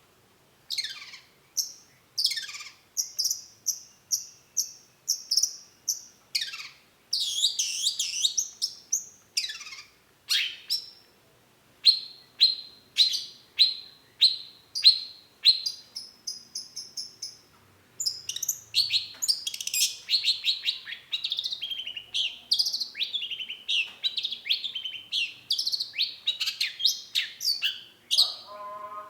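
Long-tailed shrike singing: a varied string of sharp high notes and steep falling sweeps, then a run of evenly repeated notes about two a second, breaking into dense, fast chattering about two-thirds of the way through.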